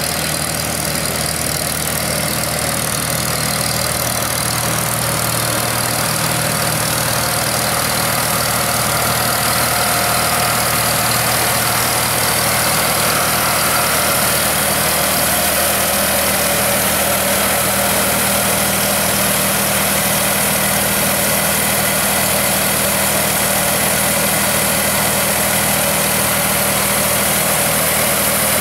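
Farmall 450 tractor's four-cylinder engine running steadily at low speed as the tractor creeps past, getting gradually louder over the first several seconds as it draws near.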